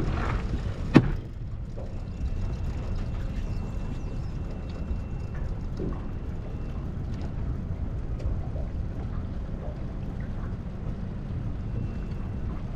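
Boat motor running steadily with a low rumble, and one sharp click about a second in.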